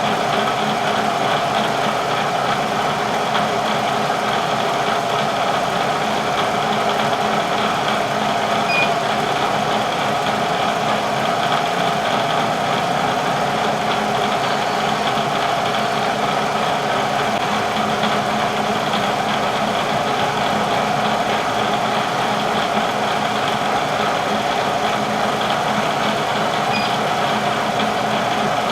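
Bridgeport milling machine running steadily, its spindle motor and drive giving an even hum with a steady whine, no cutting heard.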